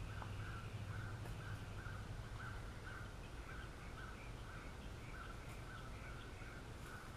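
Faint outdoor background with an animal calling over and over, about twice a second, over a steady low hum.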